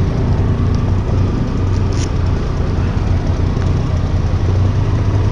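Motorcycle engine running steadily, a continuous low hum under broad road and wind noise.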